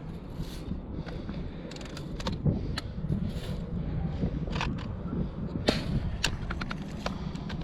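Scattered clicks and knocks from handling an Umarex NXG APX multi-pump air rifle, over steady low background noise, with the sharpest click about six seconds in.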